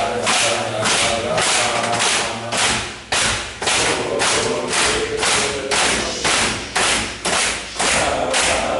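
A group of men pounding a table with their hands in a steady beat, a little over two thumps a second, while chanting together.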